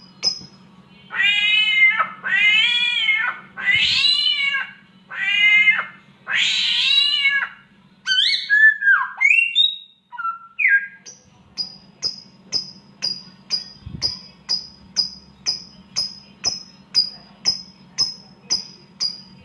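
Samyong mimic bird imitating a cat's mating yowl: five long wavering meows, then a few quick whistled glides. Short high chirps repeat about twice a second at the start and through the second half, over a faint steady low hum.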